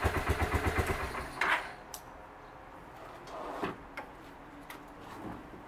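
Kawasaki Vulcan 400 Drifter's V-twin idling with an even pulsing beat, then switched off about a second in. A few light clicks and a thud follow.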